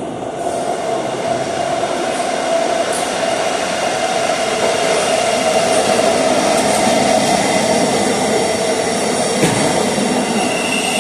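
British Rail Class 700 electric multiple unit pulling into the platform as it arrives: a steady rumble and hum of wheels and traction that grows louder as the carriages run past.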